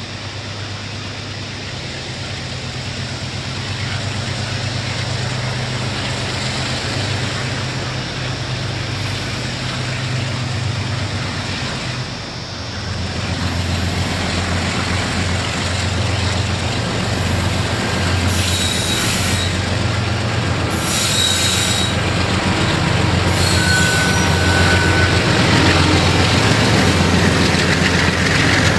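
CFCL Australia EL class diesel-electric locomotives hauling a coal train approach and pass, their engines running with a steady low hum that grows louder. About halfway through the engine note changes. In the second half the steel wheels squeal several times in short high-pitched squeals as the train rounds the curve.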